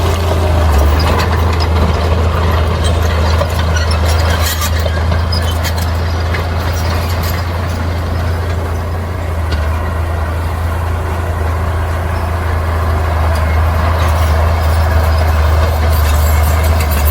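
Bulldozer's diesel engine running steadily under load, a deep drone, with scattered clanks and knocks from its tracks and the rock it is working.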